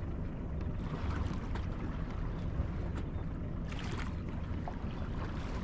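Sailboat underway: a steady low rumble of the boat with wind buffeting the microphone, and a short hissing rush of water about four seconds in.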